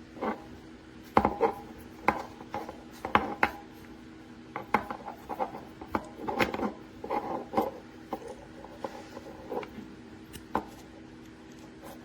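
Irregular metallic clicks, knocks and rubbing from a metal camera articulating arm being handled and adjusted, several sharp taps a second with pauses between.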